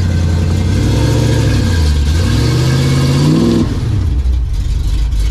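Cammed 5.0-litre V8 of a 1987 Ford Mustang GT being revved through its exhaust. The revs start high, dip about two seconds in, climb again, then fall back to idle about four seconds in.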